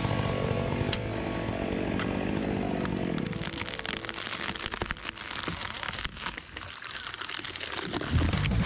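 Chainsaw engine running steadily for about three seconds, then giving way to a dense crackling, rustling noise; music comes in near the end.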